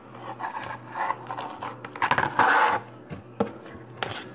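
Slime being squished and worked in the hands: irregular sticky rasping and clicking, loudest in a bout about two seconds in.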